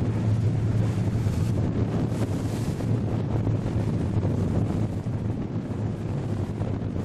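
Fishing charter boat's engine running with a steady low hum, under wind buffeting the microphone and water washing against the hull.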